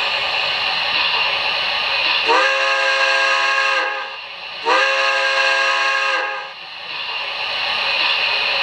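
Proto-Sound 3.0 sound system of an MTH O scale Heavy Pacific model steam locomotive blowing its chime steam whistle twice, each blast about a second and a half long, over a steady hiss of steam.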